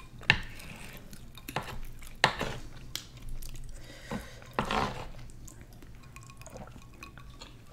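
Wooden spoons scraping and knocking against a metal sheet pan as curry and rice are scooped up, in a string of short clinks and scrapes, with quiet eating sounds between them.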